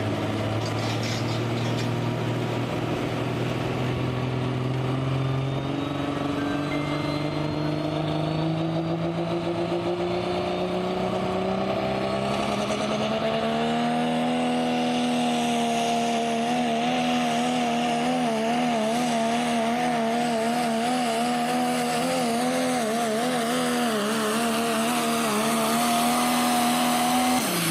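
Turbocharged diesel pulling truck's engine under full load as it pulls the sled: the pitch climbs steadily for about fourteen seconds, then holds high with a fast waver until the end.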